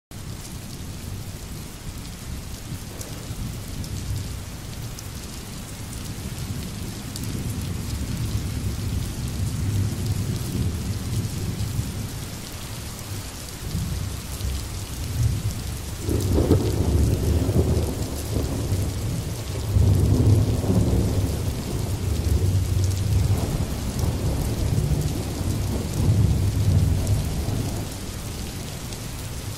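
Steady rain with low rolling thunder, the rumbling swelling about halfway through and again a few seconds later.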